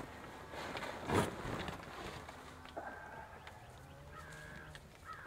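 Fabric rustling and a bump as someone pushes out through the opening of a cloth hunting blind, loudest about a second in. Near the end a bird calls several times in short calls.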